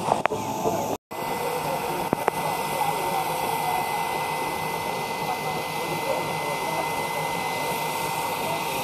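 Steam locomotive standing at rest, giving off a steady hiss of escaping steam.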